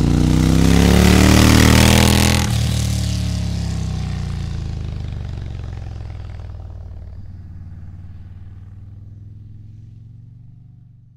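Motorcycle engine revving hard, then easing off suddenly about two and a half seconds in. A steady low engine drone follows and fades away to nothing.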